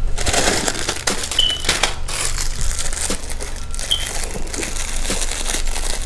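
Clear plastic packaging crinkling and rustling as it is pulled out of a bag and handled, with many small crackles.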